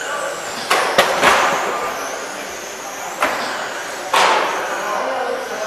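Electric RC touring cars with 21.5-turn brushless motors racing on a carpet track: a high motor whine rising and falling as the cars pass. Several sharp knocks cut in, a quick cluster about a second in and two more near three and four seconds in.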